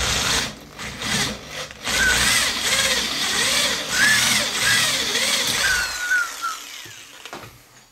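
A 5.8 mm drill bit cutting out a pressed-in ball oiler, steady cutting noise with repeated squeals that rise and fall as the bit bites. It stops shortly before the end.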